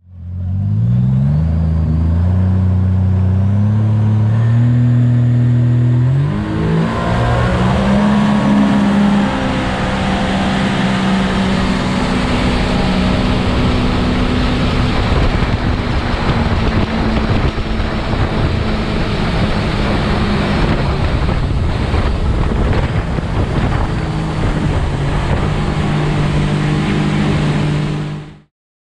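250 hp outboard on an aluminium river boat running at speed. The engine pitch climbs in steps over the first few seconds as it accelerates, then holds steady under a loud rush of wind and water. It starts and cuts off abruptly.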